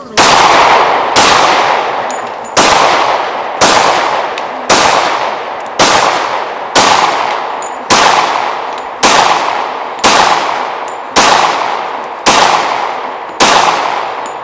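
Glock pistol fired thirteen times at a steady pace of about one shot a second, each sharp report trailing off in a long echo.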